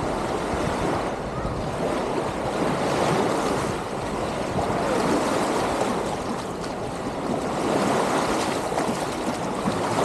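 Beach ambience: small waves lapping and washing on the sandy shore, swelling and easing every few seconds, with indistinct voices of beachgoers in the background.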